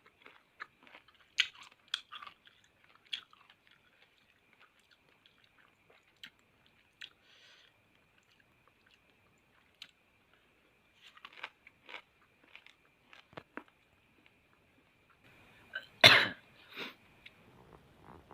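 Close chewing and crunching of crisp raw fruit rujak, unpeeled mango with chili sambal, in scattered bites with a quiet stretch in the middle. A much louder burst comes about sixteen seconds in.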